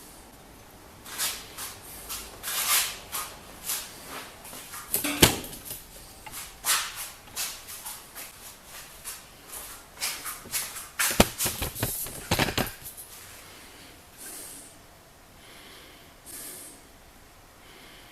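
Irregular clanks and knocks of steel parts and tools being handled, with two sharper ringing metal strikes about five and eleven seconds in; the knocking dies away after about thirteen seconds.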